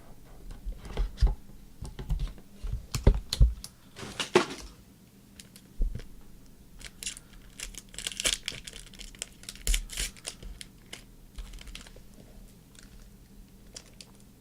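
Typing on a computer keyboard: irregular clicks and taps, with a couple of short rustling bursts about four seconds in and again around eight seconds.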